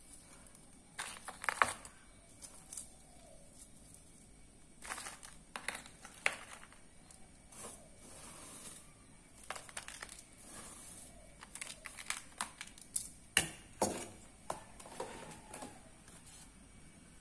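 Metal serving tongs clicking and scraping against a stainless steel tray as fried chicken pieces and crispy crumbs are picked up, mixed with crinkling of a thin plastic takeaway container. The sounds come in scattered bursts every few seconds.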